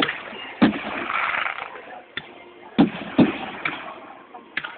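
Display fireworks going off: a string of sharp bangs, about seven in under five seconds, with a spell of hissing noise after the second bang.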